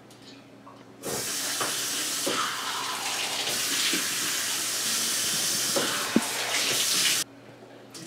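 Kitchen faucet running into a metal sink. It is turned on about a second in and shut off abruptly about a second before the end, with a few light knocks over the running water.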